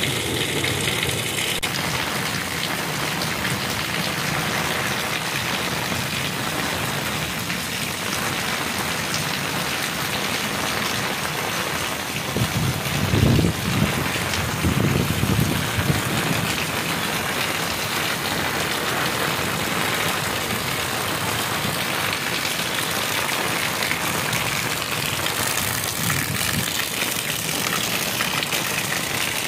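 Heavy rain pouring down and splashing on a concrete courtyard floor, a steady dense hiss. About halfway through, a few seconds of louder low rumbling rise under the rain and fade again.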